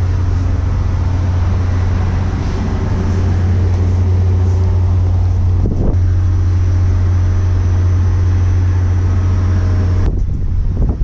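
A vehicle engine running with a steady low hum. It cuts off suddenly near the end, replaced by wind buffeting the microphone.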